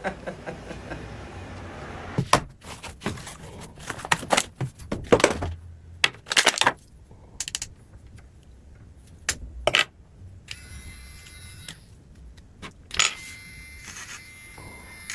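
Clicks and knocks from handling an electric pet nail grinder, then its small motor whirring in two short runs, about two thirds of the way in and again near the end.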